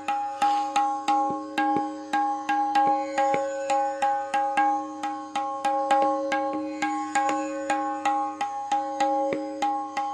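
A tabla tuned to C#, played in a steady run of strokes about three a second. Each stroke on the dayan rings with a clear, sustained pitch, the sound of a freshly repaired drum being tried out.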